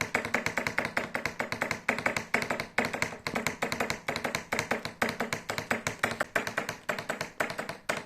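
Lovebirds chattering: a fast, steady run of sharp, clicking chirps, several a second.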